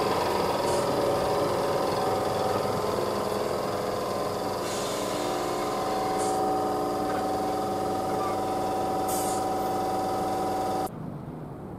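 Class 321 electric multiple unit running slowly past the platform, its traction motors giving a steady multi-toned whine with a few brief hisses; it cuts off suddenly near the end.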